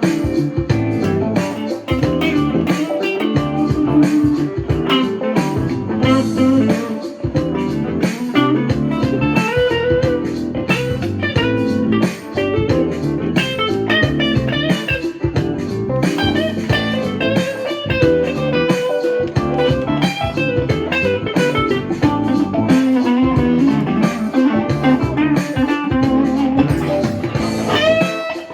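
Electric guitar played through a tube amplifier fitted with newly replaced power tubes, as a sound check: a continuous run of plucked single notes and chords.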